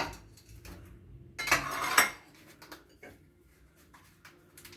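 Tableware and a potato chip packet being handled: a sharp click at the start, then a brief crinkly rattle about a second and a half in that lasts under a second.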